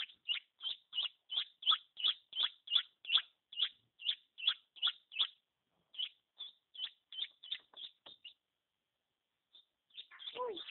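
Chicken chicks peeping: a steady run of short, high peeps, about three a second, that thins out and stops partway through. Near the end comes a louder, lower call that slides down, with a rustling scuffle.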